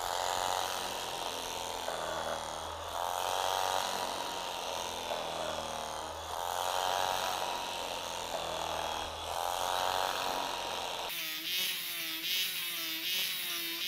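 Electric carving knife running as its blades saw through a braided challah loaf, the motor hum swelling about every three seconds as each slice is cut. About eleven seconds in the buzz turns thinner and wavering.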